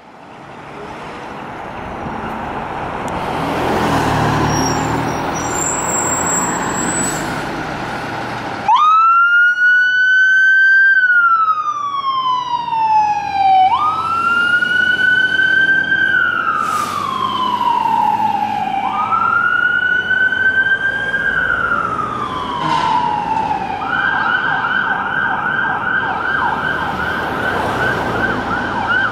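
Heavy fire-engine engine running and building up as the truck pulls out. About nine seconds in, a siren starts wailing: it rises quickly and falls slowly, over and over, about every five seconds. Near the end it switches to a fast yelp.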